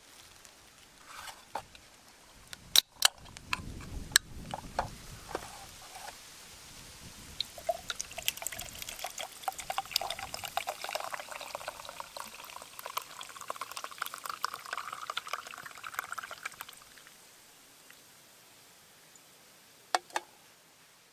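Liquid poured steadily into a pot for about nine seconds, its pitch rising as the pot fills, after a few sharp knocks of handling about three seconds in.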